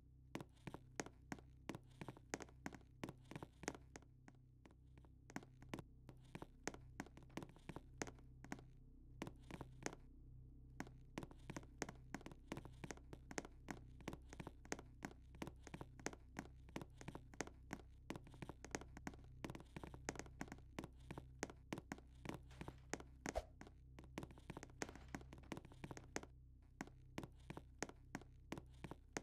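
A long run of faint, light taps or clicks, about three or four a second in an uneven rhythm, stopping briefly a few times, over a steady low hum.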